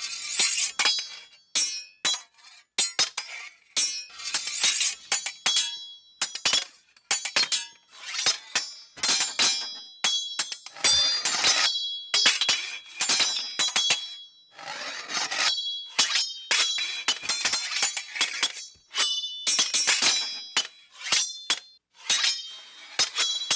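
A series of sword sound effects one after another: blade swishes and slashes, many of them ending in a high metallic ring of steel, with short gaps between them.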